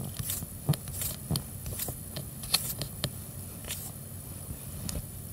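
Irregular clicks, taps and light scrapes over a low hum, with a few sharper knocks in the first three seconds: handling noise of a tablet being held and its screen scrolled.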